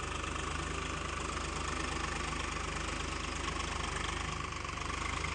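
Farm tractor's diesel engine running steadily with an even low chugging beat as it pulls a tined tillage implement through the field soil.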